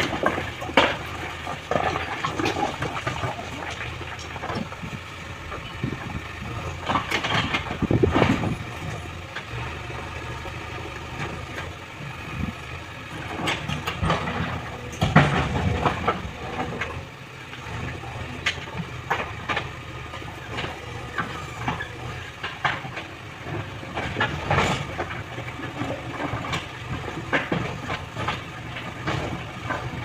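JCB 3DX backhoe loader's diesel engine running steadily as its backhoe bucket digs and drags through a pile of rocks, with irregular clatter and knocks of stones scraping and tumbling. The heaviest rock clatter comes about eight and fifteen seconds in.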